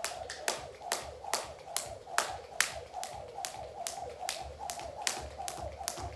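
Jump rope slapping a hard floor in a steady rhythm, a sharp smack about two and a half times a second as she skips.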